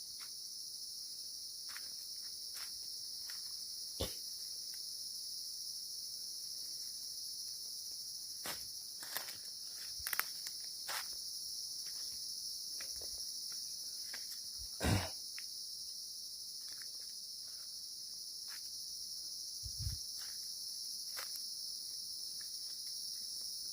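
Steady, high-pitched chorus of forest insects, crickets or cicadas, with scattered footsteps and knocks on rock; the loudest knock is about fifteen seconds in.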